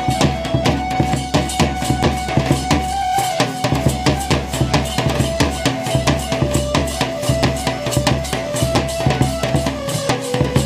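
Fast, steady folk drumming on a large barrel drum beaten with a stick, with a held melody line above it that steps down in pitch.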